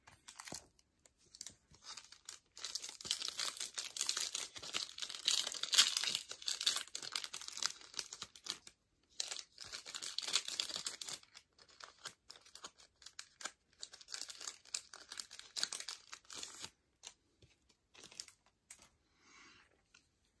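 A baseball card pack's foil wrapper being torn open and crinkled, dense crackling for about the first eleven seconds, then sparser crinkles and small clicks as the wrapper and cards are handled.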